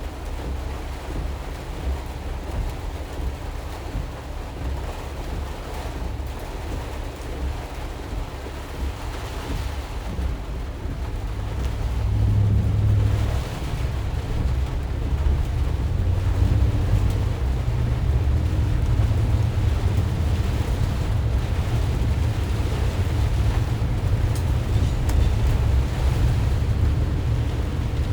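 A 2020 Ram ProMaster van driving on a wet road in heavy rain: a steady low rumble of road and wind noise with the hiss of tyres on wet pavement, growing louder about twelve seconds in.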